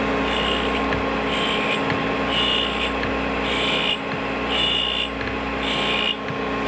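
Rush Model 132 drill grinder running with a steady hum from its spinning wheel, and a short hissing grind about once a second as the rotating two-flute step drill comes against the wheel, grinding the step.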